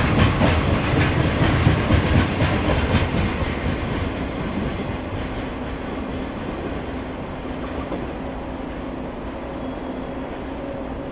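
Wagons of a high-speed container freight train rolling past, the wheels clicking rhythmically over the rail joints for the first few seconds. The sound then fades to a steady, quieter rumble as the last cars draw away down the line.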